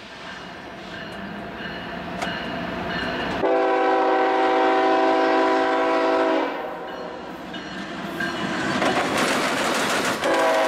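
Norfolk Southern diesel freight locomotives approaching and growing louder, their air horn sounding one long held chord a few seconds in, lasting about three seconds. Near the end the wheels clatter over the track crossings as the locomotives pass, and the horn starts up again.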